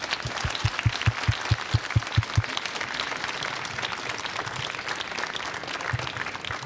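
Audience applauding. In the first two and a half seconds there is also a run of regular low thumps, about five a second.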